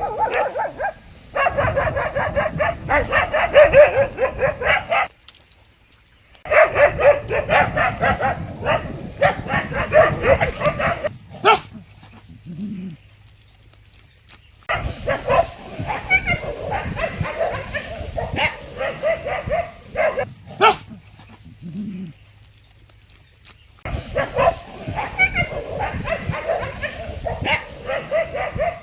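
Dog barking in rapid, repeated barks, in four bouts of about four to five seconds each with short pauses between them.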